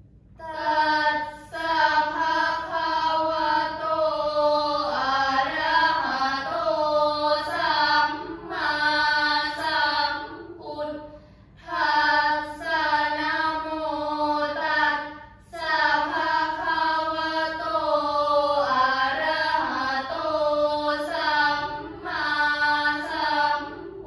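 Five girls chanting a Thai prayer in unison: a melodic, sung chant in long phrases, with short breaks for breath about halfway through and again about two-thirds of the way in.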